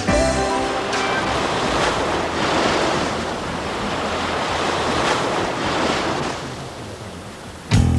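Sea surf breaking and washing up on a sandy beach: a steady rushing of waves that eases off a little towards the end.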